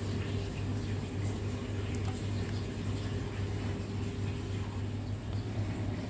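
Steady low machine hum running throughout, with a few faint light taps.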